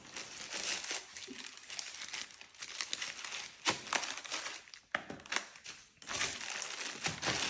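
Plastic and paper packaging rustling and crinkling as a parcel is opened by hand, with a few sharp clicks and crackles.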